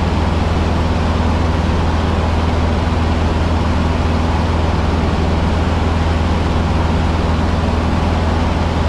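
Cessna 150's four-cylinder piston engine and propeller running steadily, heard inside the cockpit as a loud, even, low drone.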